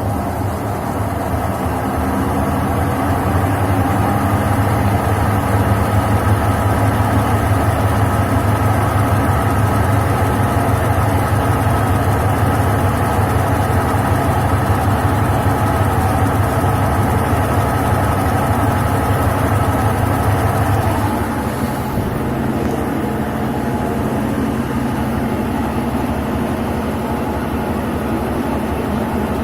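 Whirlpool Agitronic 652SD washing machine in its spin cycle, making a loud, steady mechanical noise. About two-thirds of the way through it gets a little quieter and lower in pitch. The technician blames the noise and jumping on worn shock absorbers and a faulty gearbox.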